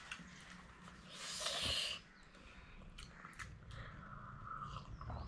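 Close-up mouth noises while eating very spicy noodles: a breathy blow into a paper tissue about a second in, a few small clicks, then sips from a glass near the end.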